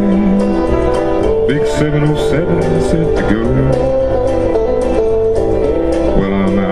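Instrumental break in a karaoke backing track of a country-folk ballad: strummed acoustic guitar over held chords, with a few sliding lead notes.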